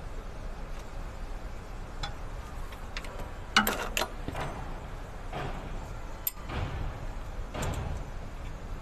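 A few sharp metallic clicks and clinks as parts are handled in a diesel truck's engine bay, the loudest cluster a little under halfway through, over a low steady background rumble.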